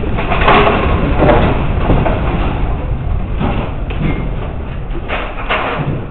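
A room shaking in an earthquake: a steady low rumble with repeated rattling and knocking of fixtures, loudest in the first half.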